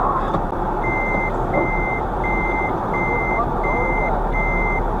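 Truck reversing alarm beeping at an even pace, about one and a half single-pitch beeps a second, starting about a second in, over a steady rumble of vehicle and road noise.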